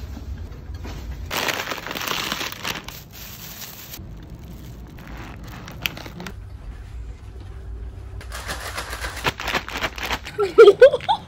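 Foil potato-chip bag crinkling and rustling in bouts as chicken is stuffed into it and the bag is shaken. Near the end come a few short vocal sounds with sliding pitch.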